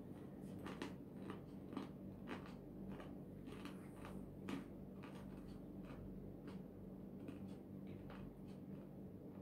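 A person chewing crunchy food close by, a run of short crisp crunches that thins out after the first few seconds, over a steady low hum.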